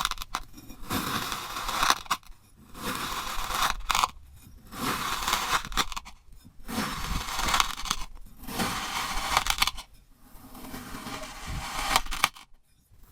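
Crunchy kinetic sand being crunched and scraped in about six repeated strokes, each a second or so long with short pauses between.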